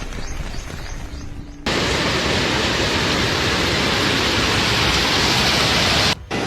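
Loud, steady rush of water noise, starting abruptly about two seconds in and cutting off just before the end.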